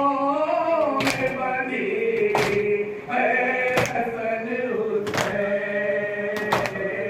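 A group of men chanting a Muharram nauha lament in unison. Sharp slaps of group chest-beating (matam) mark the beat about every second and a half.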